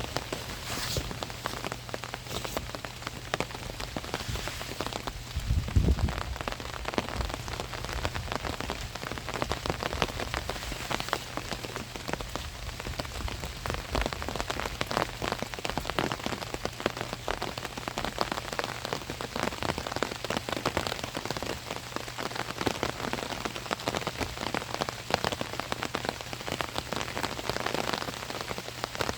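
Steady rain falling on an umbrella overhead, a dense, even spatter of individual drops. About six seconds in there is one low thump, the loudest moment.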